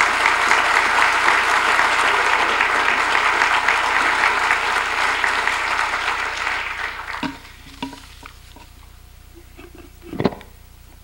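Audience applauding, the clapping dying away about seven seconds in. Near the end comes one short, sharp sound.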